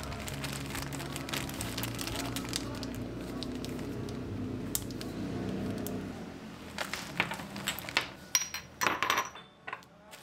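Plastic zip-top bag crinkling and rustling as it is pressed flat to push the air out and sealed. About seven seconds in comes a run of sharper crackles and taps.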